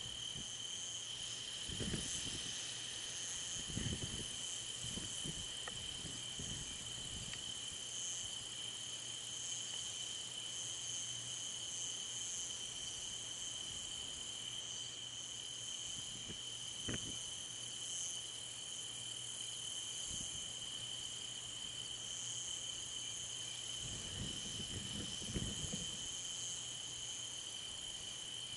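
Steady night chorus of crickets and other insects, a continuous high chirring with a second, pulsing layer higher up. A few brief low thumps break in, about two and four seconds in and again near the end, with a sharp click in the middle.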